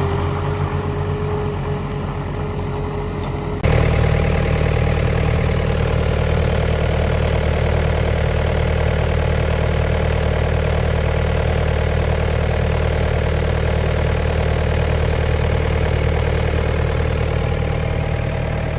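Yanmar 4TNV98T 3.3-litre four-cylinder diesel of a skid steer loader running steadily at idle. About four seconds in, the sound jumps abruptly louder and fuller and stays steady after that.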